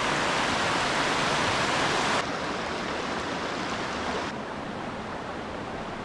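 Steady rushing of Aber Falls and the rocky mountain stream tumbling over boulders below it. The level drops abruptly about two seconds in and again about four seconds in.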